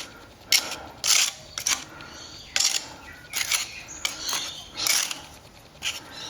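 Short strokes of a hand tool scraping and rubbing over a fresh plaster patch on a textured wall, about eight strokes at uneven intervals, blending the cornice cement into the render.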